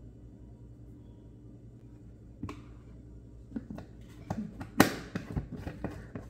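Handling of a plastic whey protein tub and scoop: scattered light clicks and knocks, then a single sharp snap about five seconds in as the lid is put back on the tub, over a steady low hum.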